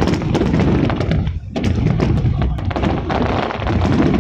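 Aerial fireworks exploding in quick succession: a dense stream of sharp pops and crackles over a deep rumble, easing briefly about a second and a half in.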